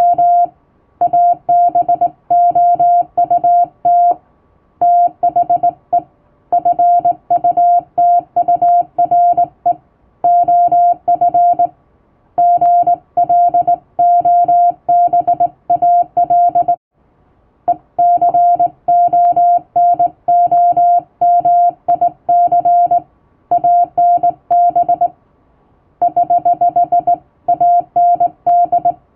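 Morse code (CW) sent by hand on a straight key, heard as a single steady sidetone switched on and off in short dits and longer dahs. The elements run in groups with pauses of about a second between words, and a longer pause around the middle.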